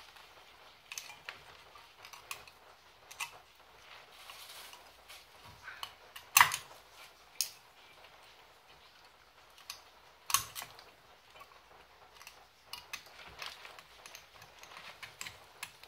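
Scattered small clicks and taps of metal brake parts being handled and fitted by hand at a 2003 Audi A4's brake caliper, with two sharper clicks about six and ten seconds in.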